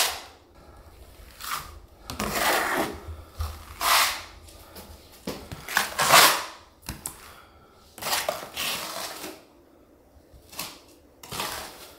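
A plastering trowel spreading and scraping wet skim plaster across a wall in about seven separate strokes, each half a second to a second long.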